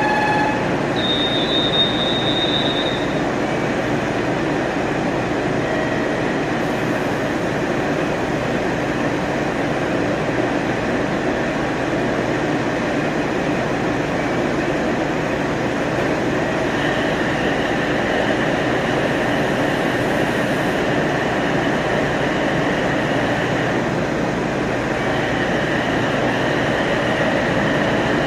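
JR Shikoku KiHa 40 diesel railcar moving slowly along the platform, its running gear and engine giving a steady noise. A thin, high wheel squeal comes in briefly about a second in and again for stretches in the second half.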